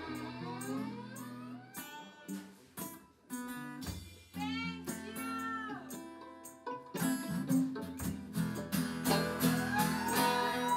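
Live acoustic blues band playing the final bars of a song: acoustic and electric guitar chords under a fiddle that slides between notes, ending on a long held fiddle note.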